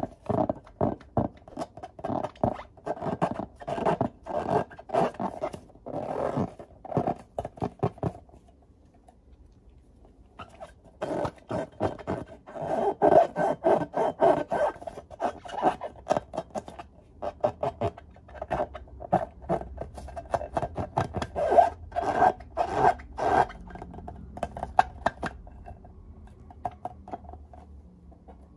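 Hands rubbing and squeezing filled latex balloons against one another: a quick, irregular run of short rubbery squeaks and rubs. It stops for about two seconds a third of the way in, then picks up again and thins out near the end.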